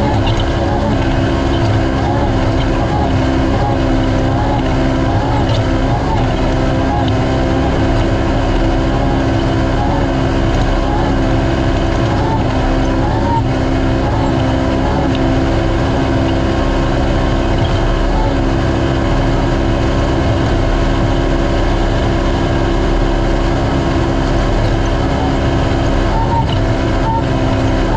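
Naturally aspirated Polaris RZR race UTV engine running under way, holding a steady note over a constant low rumble.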